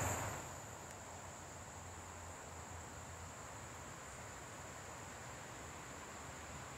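Insect chorus: a steady, high-pitched shrill that holds one pitch without a break, with a brief rustle right at the start.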